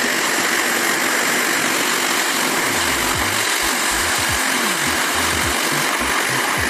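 Background music with a steady wash of sound and a low bass line that comes in about three seconds in.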